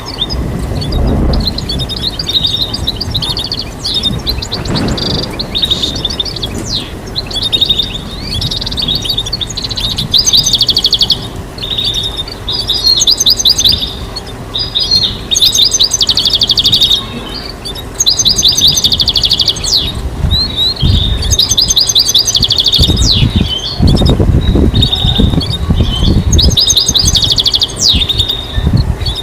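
Goldfinch singing: fast twittering phrases of rapid trills and chattering notes, repeated with short pauses. A few low rumbles sit underneath.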